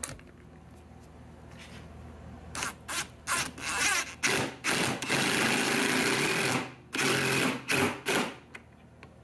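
DeWalt 20V cordless driver with a socket driving a lag bolt through a cast-iron vise base into the bench's 2x4 blocking. It runs in several short bursts, then one longer run of about a second and a half, then a few quick bursts, and stops before the bolt is fully tight.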